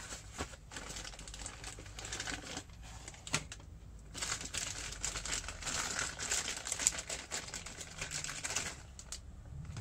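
Clear plastic bag crinkling and rustling as a carburettor is lifted out of a cardboard box and unwrapped, with scattered clicks at first. The crinkling is densest from about four seconds in until shortly before the end.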